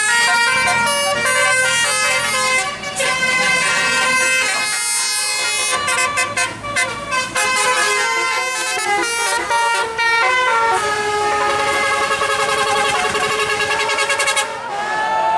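Basuri multi-tone 'telolet' air horns on tour buses playing a tune in quick stepped notes. From about eleven seconds in the notes waver, and near the end they sweep up and down in pitch.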